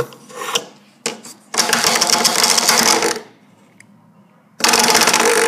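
Sonic Bomb alarm clock's bed-shaker puck vibrating in on-and-off pulses, a strong rattling buzz against wood. There is a brief burst near the start, then two buzzes of about two seconds each with a pause between them.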